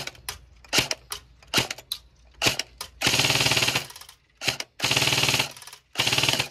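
Battery-powered airsoft AUG rifle (an AEG) firing: a string of single shots over the first three seconds, then three bursts of full-auto fire, about a second each, near the end.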